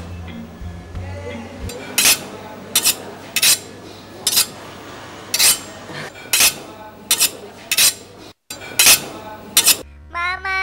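Dishes and cutlery being handled: about ten short, sharp scraping clatters at uneven intervals. Near the end comes a short chime of several tones, rising and then held.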